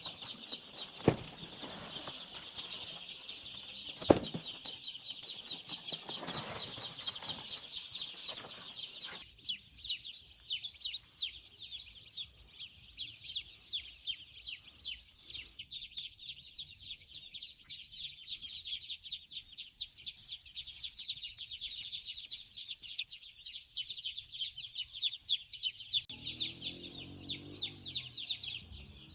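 A crowd of young chicks peeping continuously in high, rapid calls, with two sharp knocks about one and four seconds in.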